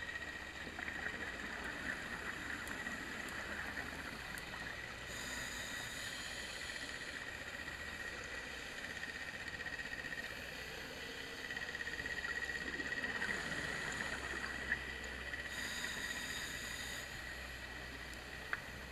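Underwater ambience recorded on a dive: a steady high whine over an even hiss, with scattered faint clicks and two sharp clicks in the second half.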